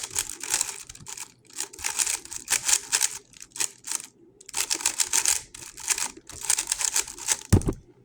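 GAN 11 M Pro magnetic speedcube being turned at speed: a dense run of fast plastic clicking and clattering with a couple of short pauses, then a low thump near the end.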